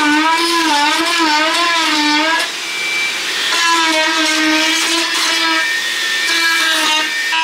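Electric power tool running with a high whine that wavers up and down in pitch as it works. It breaks off about two and a half seconds in, then runs again.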